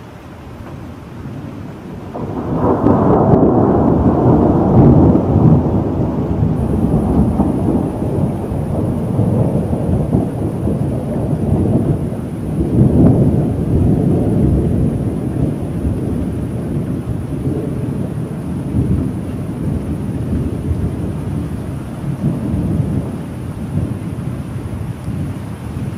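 A long roll of thunder over steady rain. It breaks in about two seconds in, swells again near the middle, and rumbles on, slowly fading.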